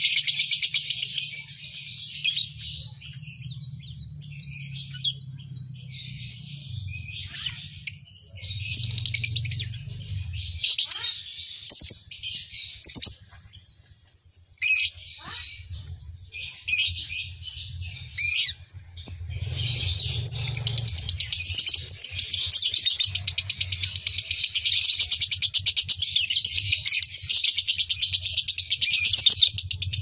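Caged lovebirds chattering in rapid high-pitched bursts with short breaks, then a long unbroken run of chatter through the last third. A faint low hum lies underneath.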